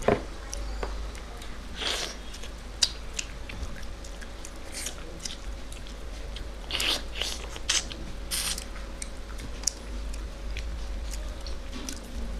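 Close-up eating sounds: chewing and crunching of rice with moong dal cooked with a fish head, with scattered short sharp clicks.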